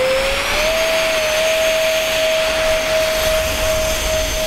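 Two 50 mm electric ducted fans on a foam radio-controlled Boeing 747 model whining during a takeoff roll on grass. The pitch rises in the first second, then holds steady over a rushing hiss of air. The fans are not at full throttle.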